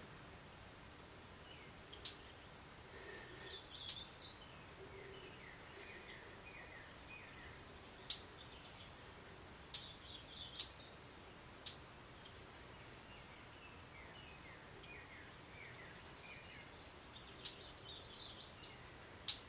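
Small birds chirping faintly: about eight sharp, very high chips scattered through, with short runs of quick descending twittering notes between them, over a soft steady hiss.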